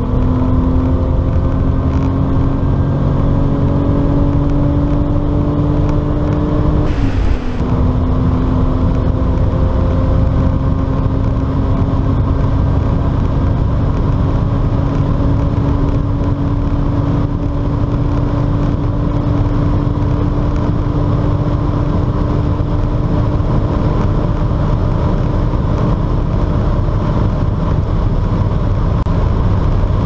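BMW E34's V12 engine under full throttle at high revs, heard from inside the cabin, pulling toward top speed. The engine note rises, breaks briefly about seven seconds in, then holds nearly steady, creeping slowly higher.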